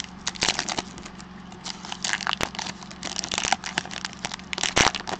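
Foil wrapper of a baseball card pack crinkling and crackling in the hands as it is torn open: a run of irregular crackles and rustles.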